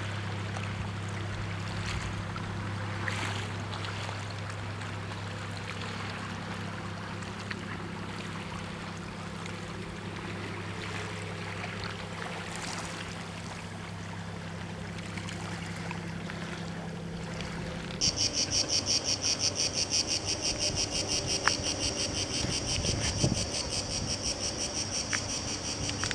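A steady low hum with faint outdoor noise, then, about two-thirds of the way in, cicadas start up: a loud, high, rapidly pulsing buzz that goes on to the end.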